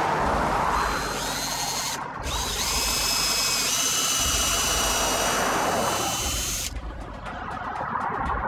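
DeWalt 18V cordless drill boring a hole into a wooden post through a steel mounting plate. The motor whine stops briefly about two seconds in, rises as it spins back up, and cuts out again near the end, followed by a run of quick clicks.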